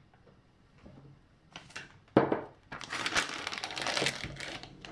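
Thin plastic zip-lock bag crinkling as it is opened out and fitted into a drinking glass, after a single knock about two seconds in.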